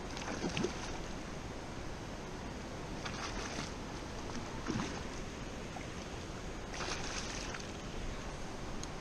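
A hooked carp thrashing and splashing at the surface in shallow water, in several short bursts: about half a second in, around three seconds, near five and around seven seconds.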